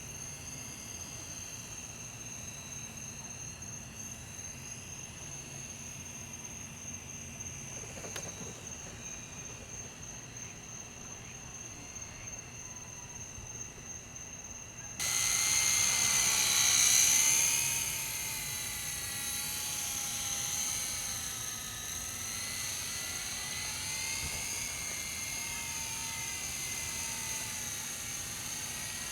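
Blade CX2 coaxial electric RC helicopter flying: a high-pitched motor and rotor whine that wavers up and down in pitch as the pilot works the throttle and controls. About halfway through it suddenly gets much louder, peaks a couple of seconds later, then eases back but stays louder than before.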